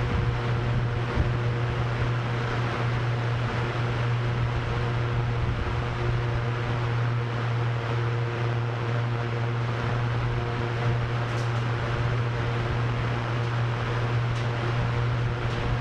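Steady hum of a drone's spinning propellers, with a low drone and several higher tones held at a constant pitch, mixed with the noise of wind.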